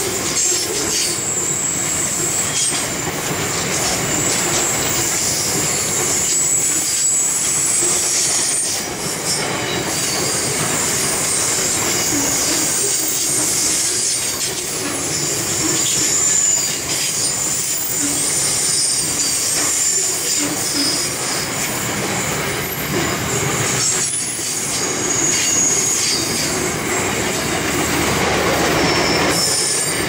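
Freight train box wagons rolling past on a curve: wheel flanges squealing in thin, high tones that come and go, over a steady rumble and clatter of wheels on rail.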